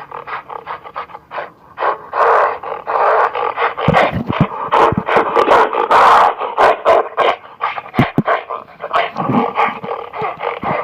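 Gorilla calling: a run of short, rapid grunts broken by several longer, louder hoarse calls.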